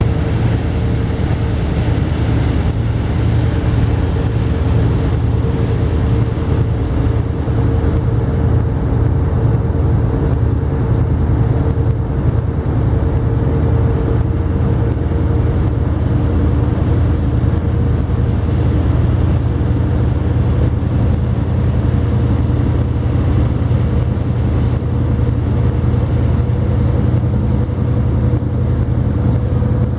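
A boat's engine running steadily under way: a constant deep rumble with a faint steady whine above it.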